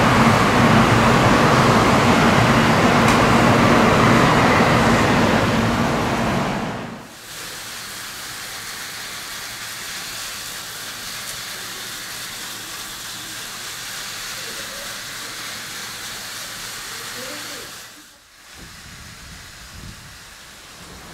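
N700-series Shinkansen train passing at speed, a loud steady rush of wheels and wind with a faint whine, cutting off about seven seconds in. Then the quieter steady hiss of a trackside snow-melting sprinkler spraying water over the track.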